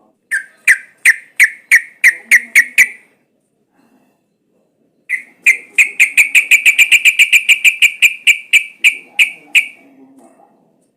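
Yellow-vented bulbul (trucukan) calling in sharp, repeated chip notes: a run of about nine, a pause of about two seconds, then a longer, faster run that slows near the end.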